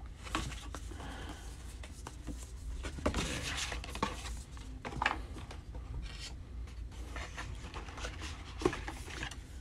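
Paper leaflets and cardboard packaging being handled: rustling and sliding with scattered light taps, and one sharp knock near the end.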